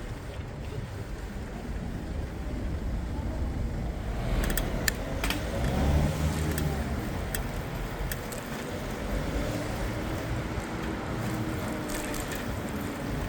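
Urban road traffic heard from a bicycle: a steady low rumble of tyres and traffic, with a car passing close and loudest about six seconds in, and another vehicle going by more faintly later on. A few light clicks are heard along the way.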